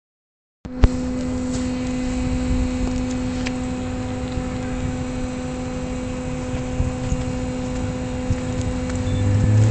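Steady machine hum with a strong low tone, a sharp click as it begins and a few faint knocks over it; near the end an engine's pitch starts to rise.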